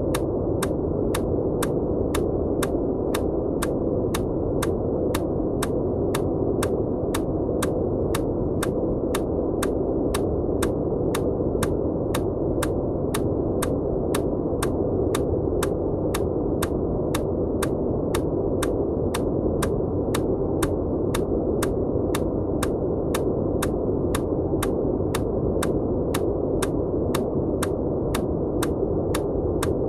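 Steady noise track, its energy weighted toward the low and middle range, overlaid with short sharp EMDR clicks repeating evenly about one and a half times a second.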